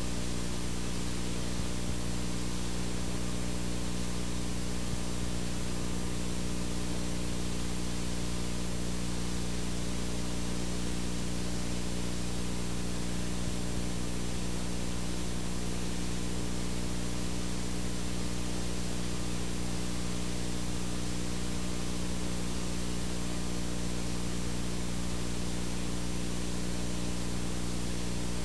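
Steady static hiss from a blank video signal, the sound that goes with TV snow, with a steady low hum beneath it.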